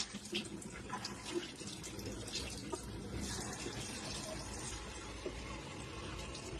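Steady running water, like a tap running, with a few faint clicks.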